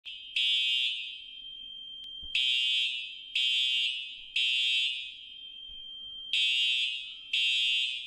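Fire alarm horn sounding the temporal-three evacuation pattern: three half-second blasts a second apart, a pause, then three more. A fainter steady tone at the same pitch carries on between the groups of blasts.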